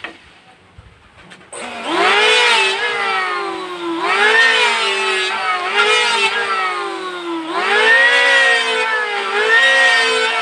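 Electric hand planer planing a wooden board: after a few faint clicks the motor starts with a rising whine, then its pitch sags slowly under load during each cutting pass and jumps back up between passes, several times over.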